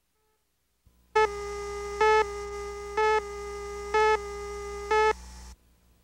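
Video countdown-leader tone: a steady tone, with five louder beeps of the same pitch, one a second, over a low hum. It cuts off suddenly about five and a half seconds in.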